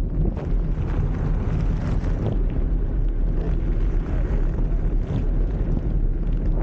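Wind buffeting the microphone of a camera mounted on a moving blokart, mixed with the low rumble of its wheels rolling over asphalt, with occasional small knocks.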